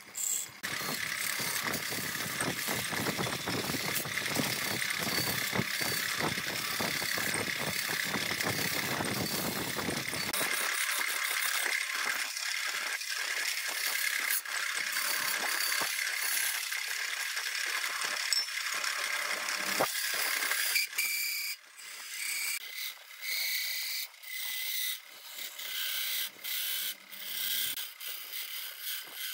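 Turning gouge cutting into a wooden vase blank spinning on a wood lathe, a continuous rough scraping chatter of steel on wood. About two-thirds through it breaks into short separate cuts of a second or so, with pauses between.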